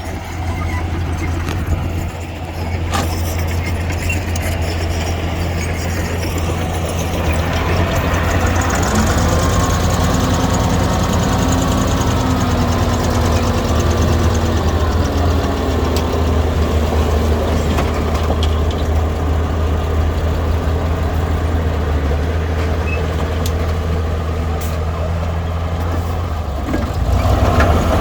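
Diesel engine of earthmoving equipment running steadily, its pitch rising and falling for several seconds about a third of the way in, and getting louder near the end.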